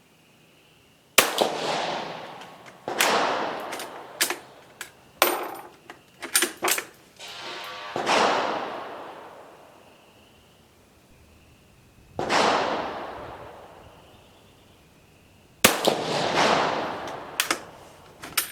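Several shots from an Italian Vetterli 1870/87/15 bolt-action rifle firing a light cast-bullet load, each echoing away over a few seconds. Between the shots the bolt is worked, with sharp metallic clacks as a spent case comes out and a cartridge feeds from the magazine.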